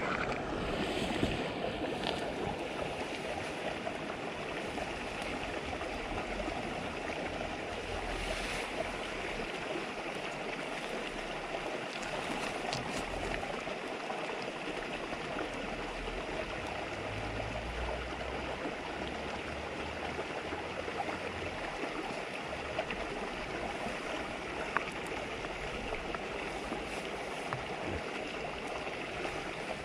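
River babbling over stones, a steady rushing of running water, with a few brief sharp pops scattered through it.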